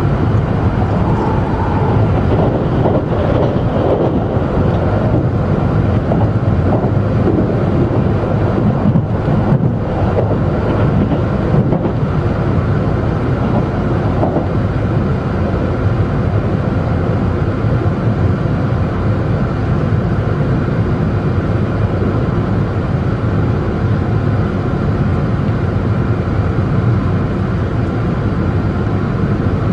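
Steady running noise of a JR West 281 series electric express train at speed, heard from inside the passenger cabin: a continuous low rumble of the wheels on the rails.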